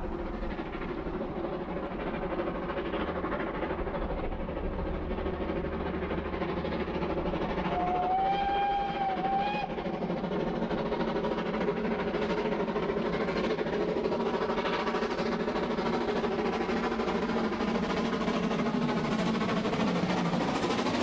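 Steam train working up a gradient, headed by a small LMS 1F tank engine with a second engine pushing at the rear, running steadily. A steam whistle sounds once for just under two seconds about eight seconds in, its pitch rising slightly and then dipping.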